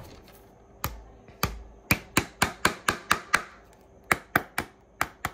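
Hammer tapping wet veg-tan leather stretched over a shoe last, molding a new heel counter. A few slower strikes, then a quick run of sharp taps at about four a second, a short pause, and another run.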